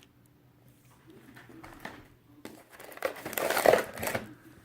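Packaging of a fireworks assortment crinkling and rustling as firework cakes are handled out of the box, faint at first and then loud for about two seconds from about two and a half seconds in.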